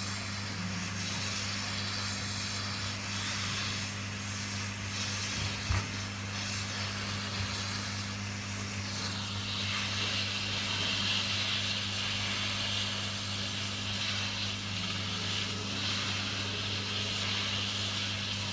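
Hot air rework station blowing on a 40-pin chip to melt its solder for removal: a steady airy hiss over a low, even hum. The hiss grows brighter about halfway through, with one small knock in the first third.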